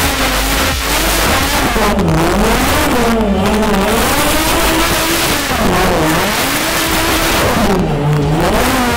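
Dodge Viper V10 engine revving hard while drifting, its pitch rising and falling every second or two, over a steady rush of tyre noise.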